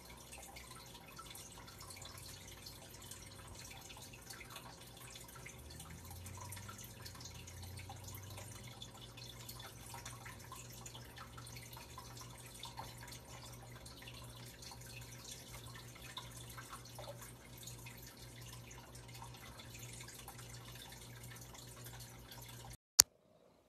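Faint room tone with a steady low hum and scattered faint ticks, and one sharp click near the end.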